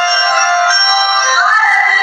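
High voices singing a folk song, with long held notes that glide from one pitch to the next.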